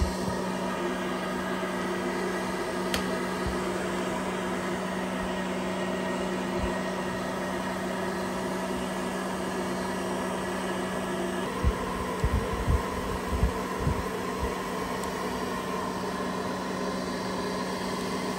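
Small pet hair dryer's blower running steadily with an even motor hum and fan noise. A few soft low thumps come about two-thirds of the way through.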